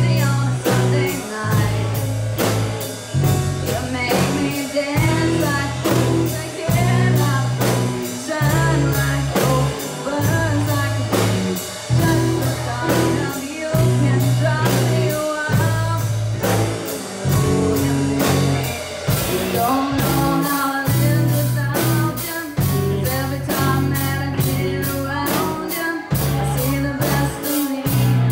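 Live rock band playing a song with a steady beat over a bass line. About two-thirds of the way through, the cymbals become louder and more frequent.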